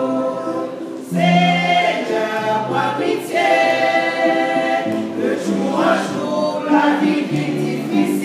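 Women's choir singing together unaccompanied, holding each note for about a second before moving to the next.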